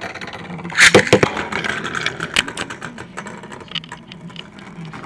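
A Beyblade spinning top launched by pulling its plastic ripcord: a loud rasping rip about a second in, then the top spinning on a plastic surface with a steady whirr and rapid clicking and rattling.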